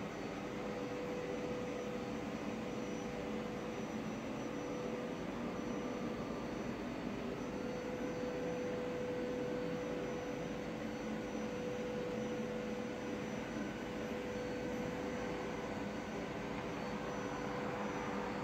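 A steady, even rushing noise with a constant hum running through it.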